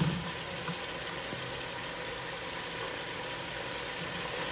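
Canned tuna, onion and garlic sizzling steadily in oil in a stainless steel pot, with a few light scrapes of a wooden spatula stirring in the first second or so.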